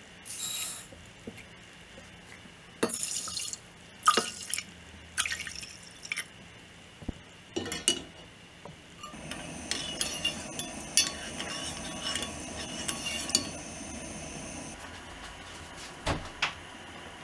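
Rice and water poured into a stainless steel saucepan: short pours and splashes with clinks of the bowl against the pot. From about halfway, a steady sound of the rice and water boiling in the pot, with scattered small clicks.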